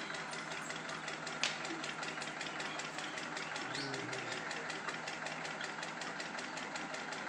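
Atta chakki (flour-grinding mill) machine running below, with a steady, rapid, even beat. A single sharp click sounds about a second and a half in.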